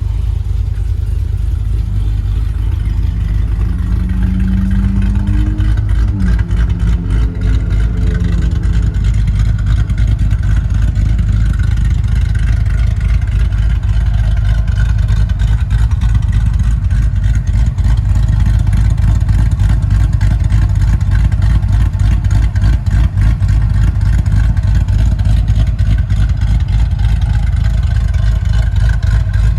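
Chevy SS's LS3 V8, fitted with a Livernois stage 2C camshaft, running loud and steady, with one rev that rises and falls a few seconds in.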